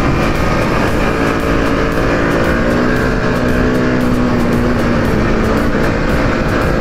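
Bajaj Pulsar RS200's single-cylinder engine running at a fairly steady pace, heard from the rider's seat, its pitch drifting slightly up and down.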